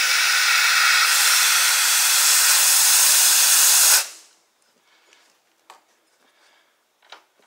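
Compressed air hissing steadily through a tire inflator chuck into a garden tractor tire's new inner tube, cutting off suddenly about four seconds in. A few faint clicks follow.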